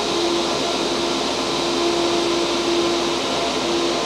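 A row of AC Infinity Axial 1238 high-speed 120 mm AC muffin fans (110 CFM) running flat out on mains power with no speed control: a steady rush of air with a steady hum under it.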